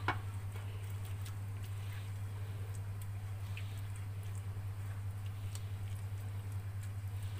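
Silicone pastry brush dabbing and swishing melted ghee across an aluminium baking tray, heard as faint, scattered soft ticks, over a steady low hum.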